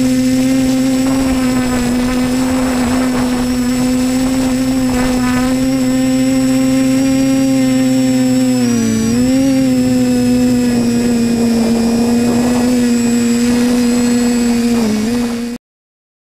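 Team BlackSheep Discovery Pro quadcopter's electric motors and propellers running with a steady buzzing whine, heard from the camera on board. The pitch dips and wavers briefly about halfway through and again near the end, then the sound cuts off abruptly.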